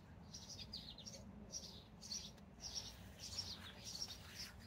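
Birds chirping in the background: a steady run of short, quick, high chirps in little clusters.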